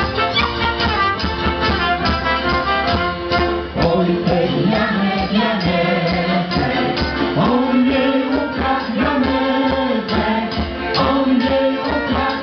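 Polish folk band playing a lively tune with a steady beat on trumpet, accordion and double bass, with voices singing along.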